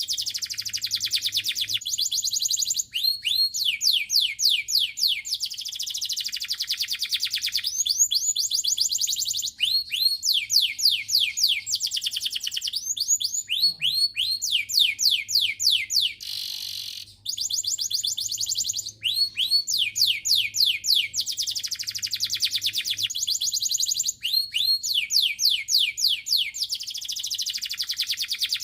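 Domestic canary singing high-pitched rapid trills, phrase after phrase, each trill a fast run of repeated rising notes, with a faint steady low hum underneath.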